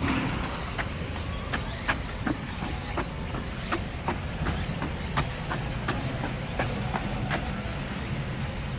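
Footsteps and shoe scuffs of people walking on hard ground: irregular sharp clicks, a few a second, over a steady low rumble of wind on the microphone.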